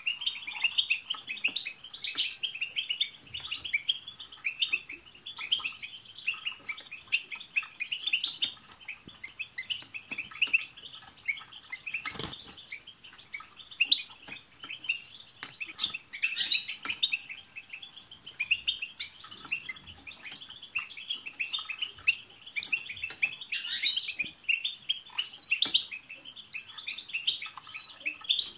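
A chorus of European goldfinches singing: a fast, unbroken twittering song, with short high notes breaking through above it now and then in quick runs.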